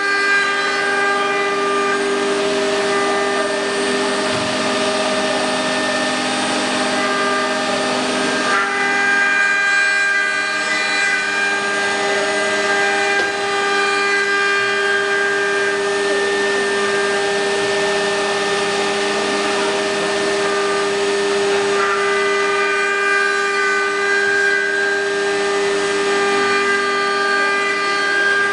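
Eight-spindle, four-axis CNC wood router running, its spindles giving a loud, steady multi-tone whine while carving wooden blanks on the rotary axes. The pitch of the whine shifts about 8 to 9 seconds in and again about 22 seconds in.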